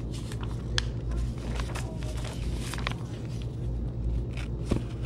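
Pages of a large book rustling and crackling as they are turned and the book is handled, with scattered small clicks and a sharper knock near the end, over a steady low hum.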